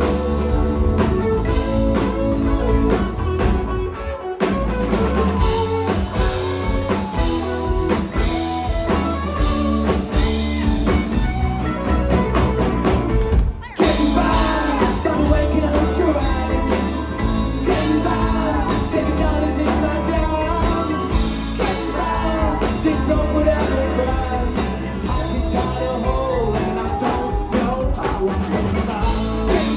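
A rock band playing live, with drum kit, guitars and bass under singing. The band drops out for an instant about fourteen seconds in, then the singing carries on over the full band.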